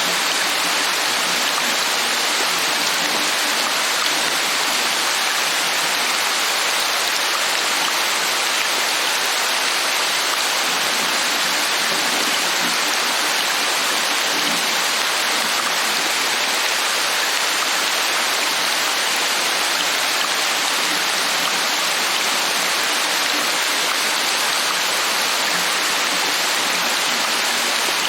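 Steady, even rain falling, a continuous hiss with no single drops or breaks standing out.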